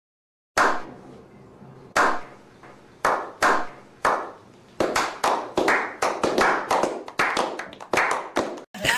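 Hands clapping: a few slow claps, then quicker, irregular claps about three a second.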